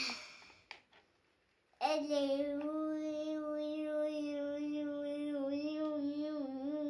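A child's voice holding one long sung note at a steady pitch for about five seconds, starting a couple of seconds in.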